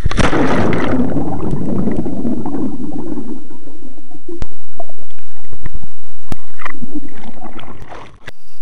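Seawater rushing and bubbling around a microphone plunged under breaking waves. A loud burst of churning water at the start dies down over a few seconds, and the sound fades out near the end.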